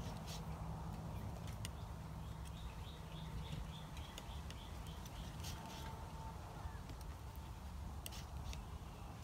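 Outdoor ambience: a steady low rumble, with a small bird's rapid chirping trill from about two to four seconds in and a few light scattered ticks.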